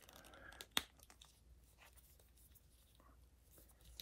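Hands handling a plastic action figure, faint ticks and rubbing with one sharp click just under a second in.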